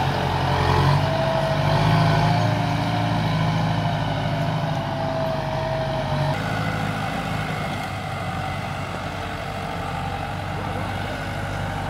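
Kubota tractor's diesel engine running steadily as it works the soil, with a wavering mid-pitched whine over the engine note. The sound changes abruptly about six seconds in and is quieter after that, as the tractor is farther off.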